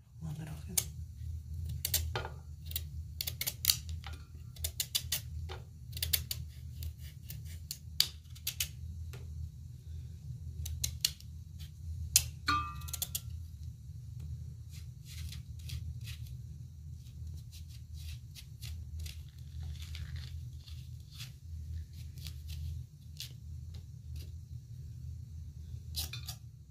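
Kitchen knife cutting and peeling pumpkin over an enamel bowl: a run of short, sharp cuts and clicks, thickest in the first half, with a brief ring about halfway. A steady low hum runs underneath.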